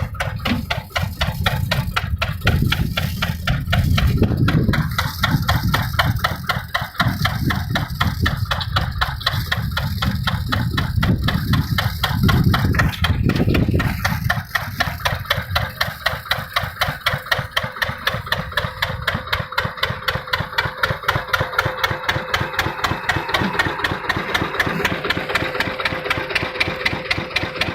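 An engine running steadily at idle with an even, rapid beat. Heavier deep surges come and go through the first half and fade out about halfway through.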